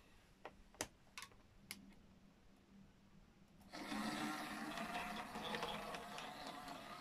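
A few light clicks, then about four seconds in an OO gauge model Class 06 shunter sets off with its wagon: its small electric motor and wheels run steadily and loudly on the track.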